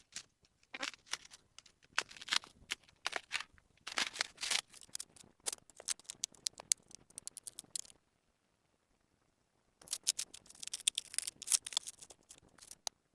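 Protective plastic film being peeled and crumpled: a run of irregular crackling rustles, a pause of about two seconds, then more crackling.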